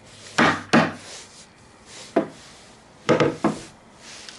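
PVC pipe and its end cap knocking as they are handled and the cap is fitted onto the pipe end: about five sharp knocks, in two pairs with a single one between.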